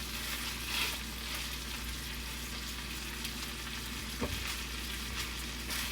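Food sizzling steadily in a hot pan, with a light knock about four seconds in.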